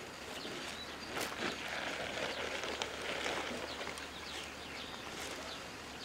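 Quiet rural outdoor ambience with faint scattered bird chirps and a couple of soft clicks.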